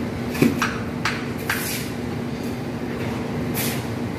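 A machine runs steadily with a low hum, and several short scrapes of a mason's trowel against mortar and concrete hollow blocks cut through it.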